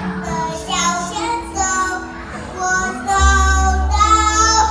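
A three-year-old boy singing a Mandarin pop song into a handheld microphone over backing music. A deep, steady bass comes in about three seconds in.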